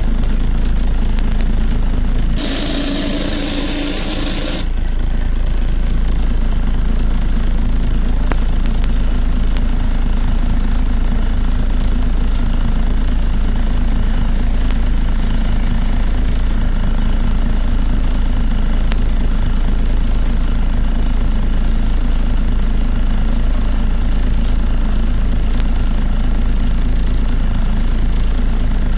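Volvo B7TL double-decker bus heard from on board: a steady low drone carrying the very loud suction noise, which the uploader puts down to poor maintenance. About two seconds in, a burst of air hissing lasts about two seconds.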